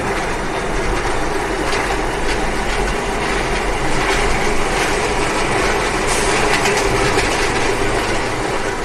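A train passing close by: loud, steady rail noise with wheel clatter.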